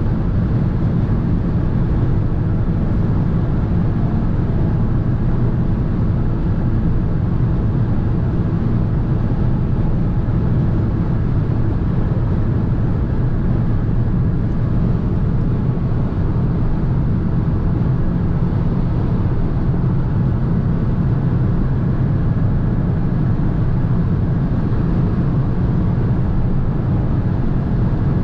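Cabin noise of a 2022 Fiat 500 1.0 Hybrid cruising at motorway speed: a steady low drone from its three-cylinder engine, blended with road noise from its Kumho all-season tyres and wind noise. The sound holds level, with no gear changes or other events.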